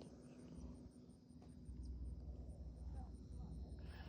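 Cricket chirping steadily in high, even pulses, about five a second, over a low rumble.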